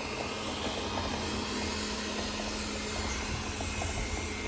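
Robot vacuum cleaner running: a steady whir with a constant low hum.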